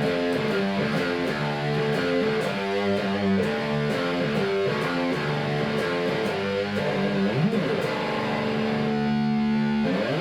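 Electric guitar played through the Diezel VH4-2 distortion pedal, its first channel: a distorted riff of single notes and chords with a few slides, ending on a held note. Recorded on a phone microphone.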